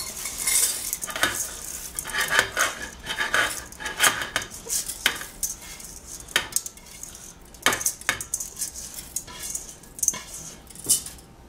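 Rinsed, wet long-grain rice scraped by hand out of a stainless steel bowl into a stainless steel pot: repeated irregular clinks and knocks of metal on metal as the bowl meets the pot, with the scraping rustle of the grains sliding in.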